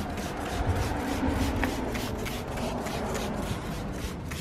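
Trigger spray bottle of tire rubber cleaner squirted over and over, short hissing sprays about three a second.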